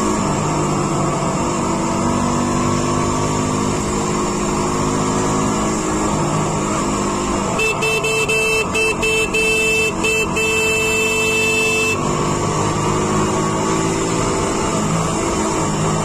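A vehicle's engine running under way, its pitch rising and falling. From about halfway through, a horn sounds in a quick series of short toots for about four seconds.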